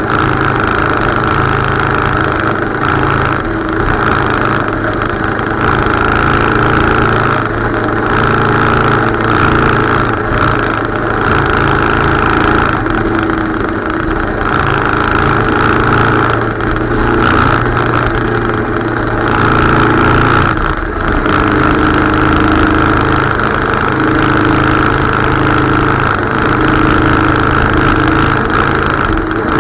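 Motorcycle engine running steadily while riding along a road, its pitch shifting a little with the throttle.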